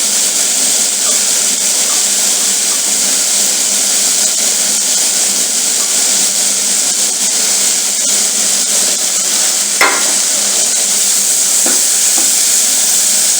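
Shredded cabbage, onion and spring onions sizzling steadily in hot oil in a frying pan, with two brief knocks about ten and twelve seconds in.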